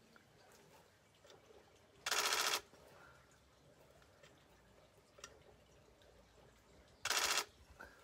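Canon EOS-1D X Mark III camera shutter firing in rapid continuous bursts: two bursts of about half a second each, some five seconds apart.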